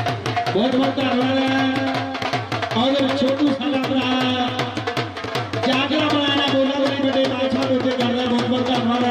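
Music with drums beating a fast, even rhythm under a held melody line that comes in phrases of two to three seconds.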